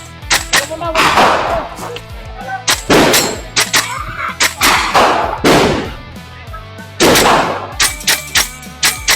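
Double Eagle AX-15 gas blowback airsoft rifle firing a string of sharp shots in quick groups, each shot cracking with the gas-driven bolt cycling, under a steady music bed.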